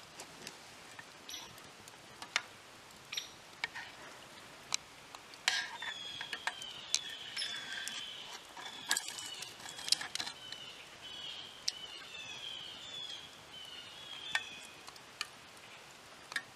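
Wood campfire crackling with scattered sharp pops and snaps. From about five seconds in, a bird chirps a quick run of short, falling notes over it.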